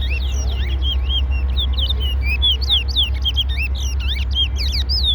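A chorus of many small songbirds chirping without a break, their quick notes overlapping and mostly falling in pitch, over a steady low rumble.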